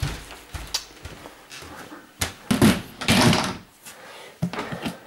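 Handling noise as things are set down and shifted about: a few knocks and clunks with rustling in between.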